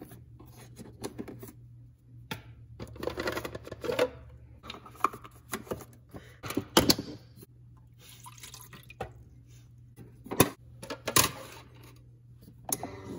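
Handling noises from a Keurig single-serve coffee maker: scattered plastic clicks and knocks as the K-cup pod holder and lid are worked and a paper cup is set on the drip tray, with a few sharper knocks in the second half. A faint steady low hum runs underneath.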